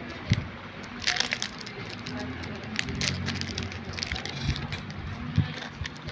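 Foil booster pack wrapper crinkling with sharp crackles as it is handled and torn open.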